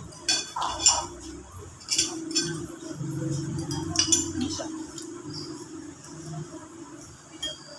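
Metal spoons and forks clinking against white ceramic bowls while eating noodle soup: a handful of sharp, ringing clinks, the loudest about a second in.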